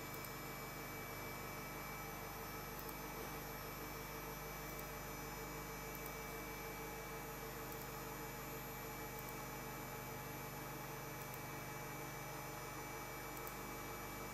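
Steady electrical hum with a faint hiss, unchanging throughout, with no distinct events.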